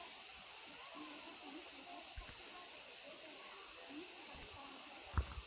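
Steady high-pitched insect chorus, with faint distant voices beneath it and a single short knock near the end.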